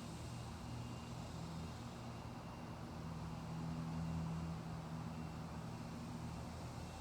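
Car engine and road noise heard from inside the car, a low steady hum that swells slightly about halfway through.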